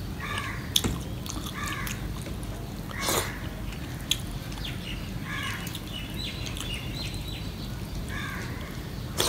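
A crow cawing repeatedly, about five short caws spaced a second or two apart. A sharp click sounds a little under a second in.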